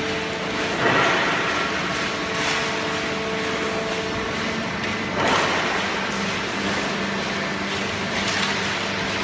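Hydraulic waste-paper baling press running: a steady machine hum with a few short hissing surges, about a second in, about halfway through and near the end.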